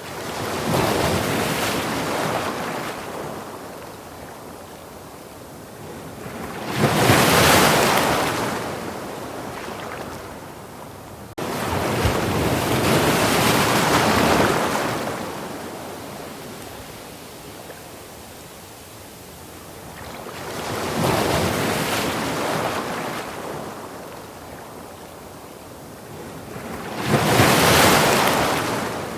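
Sea waves breaking on a sandy beach, each surge swelling and washing out over a few seconds, about five in all. The sound jumps abruptly once, about a third of the way in.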